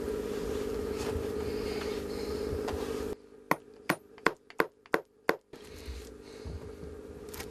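A steady low hum, then, about three and a half seconds in, six sharp hammer taps a little under half a second apart: small nails being driven to pin a muskrat pelt to a wooden stretching board. The hum comes back near the end.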